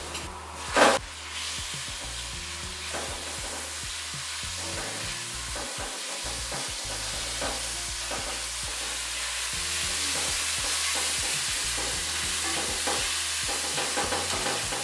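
Garlic and then diced chicken sizzling in hot oil in an aluminium wok while a silicone spatula stirs and scrapes the pan, with one short loud burst about a second in. The frying hiss grows louder in the second half.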